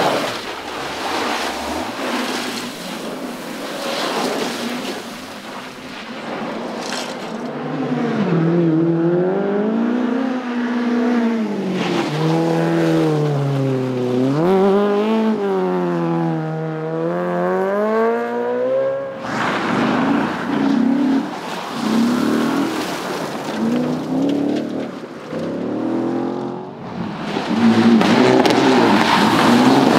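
Rally car engines revving hard on a stage, the pitch climbing and dropping again and again with gear changes and lifts off the throttle. About two-thirds of the way in the engine note breaks off sharply, followed by choppier revs, and it is loudest near the end.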